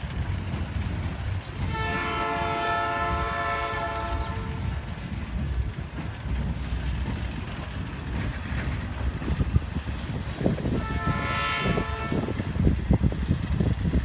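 Locomotive horn sounding two blasts, a long one about two seconds in and a shorter one about eleven seconds in, over the steady rumble and clicking wheels of freight cars rolling past on the rails.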